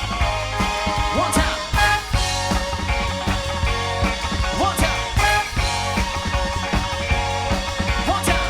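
A live soul band plays an instrumental passage with no singing: electric guitar, bass and drums, with a few sliding guitar notes and sharp cymbal-like hits.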